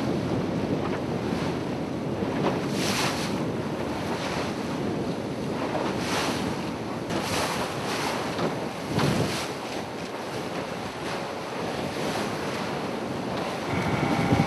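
Wind buffeting the microphone over the rush and splash of choppy sea, with several louder surges of spray. Near the end a steady motor hum joins in.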